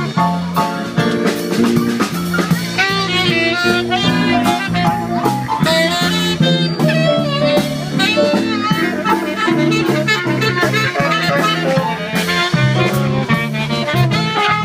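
Live swing-jazz band: a saxophone plays a running melody over electric bass, keyboard and drum kit.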